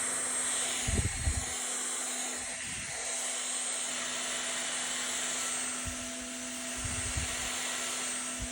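Household vacuum cleaner running steadily with a whirring motor hum, with a few brief low bumps about a second in and again near the end.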